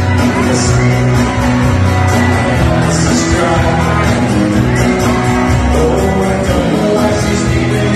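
Live rock band playing: drum kit, bass guitar and electric and acoustic guitars, with singing.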